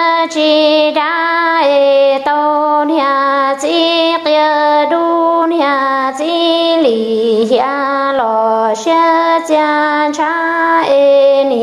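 A woman singing Hmong kwv txhiaj (sung poetry) solo, in long held notes that step up and down in pitch, with short breaks between phrases.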